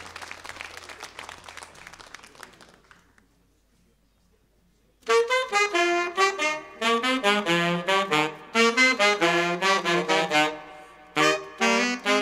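Applause dies away over the first few seconds, a short hush follows, then a trio of saxophones starts playing a tune about five seconds in, in phrases of short notes broken by brief pauses.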